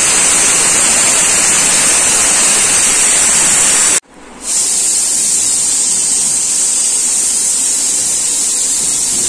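Steady, loud rushing hiss. It cuts out abruptly about four seconds in and comes back about half a second later.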